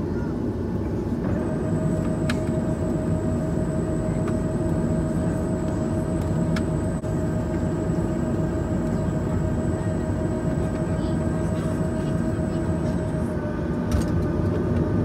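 Boeing 737-900ER cabin over the wing: a steady engine rumble, with a steady whine from the flap drive that starts about a second in and stops shortly before the end as the trailing-edge flaps extend for takeoff.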